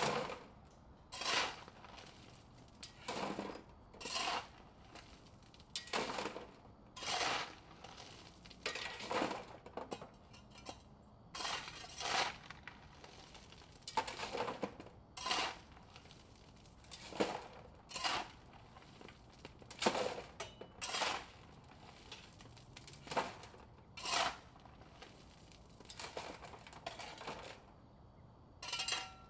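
Shovel scooping rocks and tipping them into a wheelbarrow, over and over: a clattering, rattling burst of stones about every one to two seconds.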